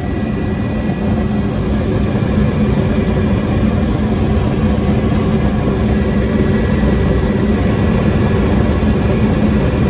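Ruud gas furnace running in heating mode, burners lit: a steady roar of gas flames and fans, growing a little louder about a second in and then holding level.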